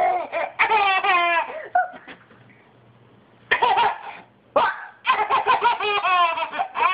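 Toddler laughing in two runs of quick, high-pitched laughs, with a short quiet pause between them.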